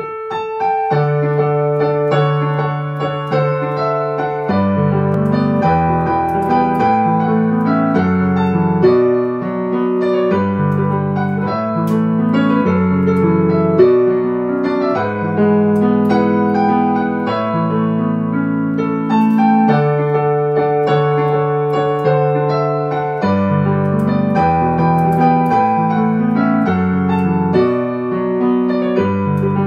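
Yamaha digital piano played with both hands: sustained chords in the right hand over a bass line that changes every second or two. It is the chorus of a new dance tune being composed.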